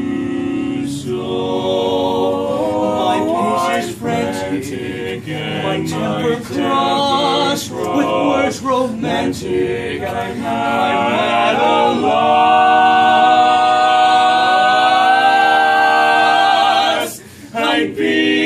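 Male barbershop quartet singing a cappella in close four-part harmony, swelling into a long held chord about twelve seconds in that breaks off briefly near the end before the singing picks up again.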